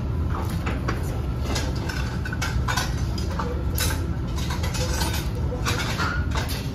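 Metal tongs clicking against shellfish shells and the steel hot pot while moving pieces of squid, a scattering of short sharp clicks over a steady low rumble.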